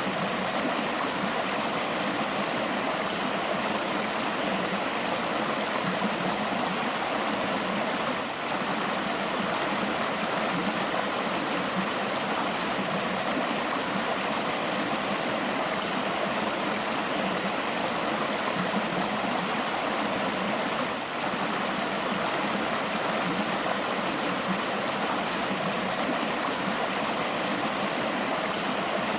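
A forest river flowing, a steady rushing, babbling water sound, with two brief small dips in level.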